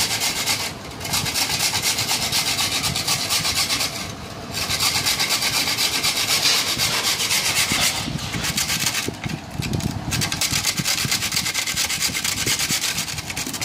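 Dry toast being rubbed on a metal grater to make breadcrumbs: a continuous rasping scrape, broken by a few short pauses.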